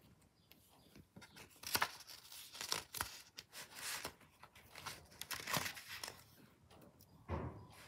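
Paper being handled and torn, heard as a series of short crinkling, tearing bursts over several seconds, with a duller knock near the end.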